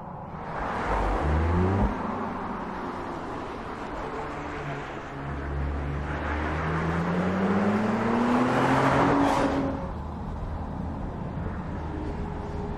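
Audi S5 Sportback's V6 engine accelerating hard: its pitch climbs and cuts off at an upshift just before 2 s. It then rises again in a long climb as the car passes close about 9 s in, with a rush of tyre and wind noise. A lower, steadier engine sound remains near the end.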